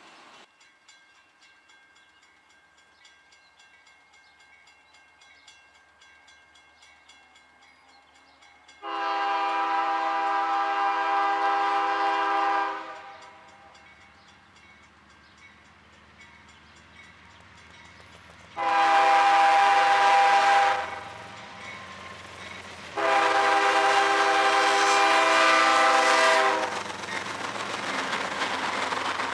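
A CSX freight locomotive's air horn sounds three blasts as it approaches: a long one about nine seconds in, a shorter one about ten seconds later, and another long one soon after, each a loud steady chord of several notes. Near the end the locomotive passes close by and the rumble of its wheels on the rails rises.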